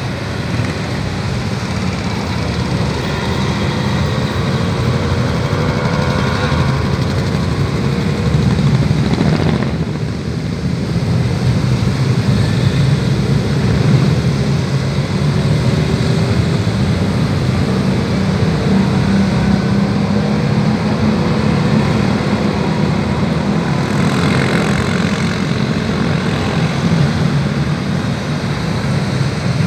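A procession of motorcycles riding past one after another, their engines running continuously, with pitch rising and falling as individual bikes pass and rev.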